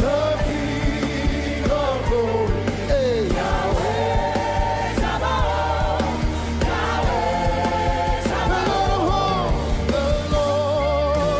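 Live gospel worship music: a band with a steady bass under singers holding long notes that waver and slide.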